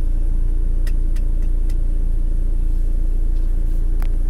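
Vehicle engine running, heard from inside the cab as a steady low rumble, with a few faint sharp clicks.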